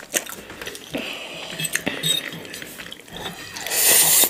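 Fork and chopsticks clicking against plates while noodles are eaten, then a loud slurp of noodles near the end.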